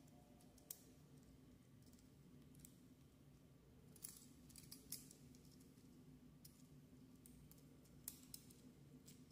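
Faint, scattered clicks of the NewAge Sif transforming figure's small plastic parts being handled and pressed together as they are worked into alignment, the clearest about four, five and eight seconds in, over a low steady background hum.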